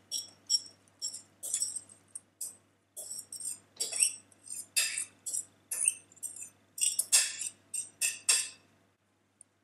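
A spoon scraping and clinking against a glass mixing bowl in a quick, irregular series of short strokes as moist sauerkraut filling is scooped out of it.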